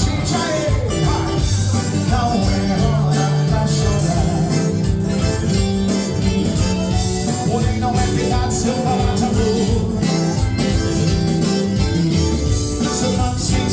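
Live xote (forró) music: a band playing with singing, plucked strings and a steady beat.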